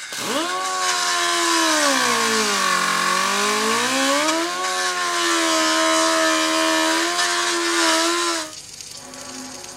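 Angle grinder grinding on a steel pipe at its welded flange. The motor's whine starts up, sags in pitch about three seconds in as the disc is pressed into the steel, climbs back and holds steady, then stops near the end.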